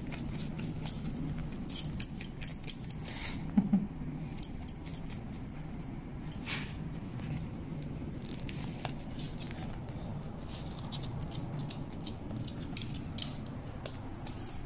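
A puppy's metal collar tag jingling as she scratches herself with a hind leg: on-and-off bursts of light metallic jingles and clicks over a low steady hum.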